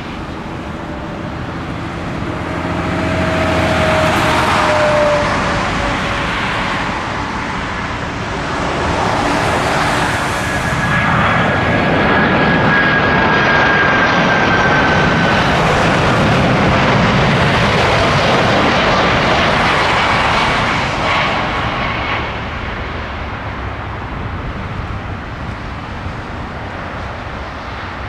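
Jet airliner's engines passing by: a broad rushing roar that builds over several seconds and holds loud for about ten seconds, with whining tones that slowly fall in pitch as it goes past, then dies away in the last few seconds.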